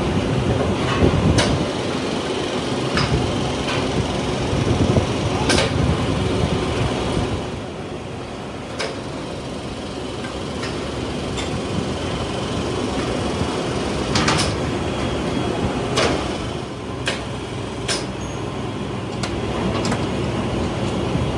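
Steady hum of factory machinery with sharp metallic clanks every few seconds from a steel water-tank mould being handled on its hoist and frame. The hum drops a little about seven seconds in.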